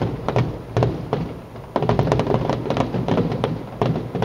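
Aerial fireworks going off: a string of bangs and sharp crackles, thickening into a dense crackling barrage about two seconds in.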